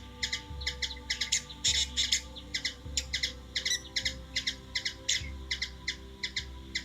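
A bird chirping over and over, short sharp chirps about three a second, with a low rumble coming and going underneath.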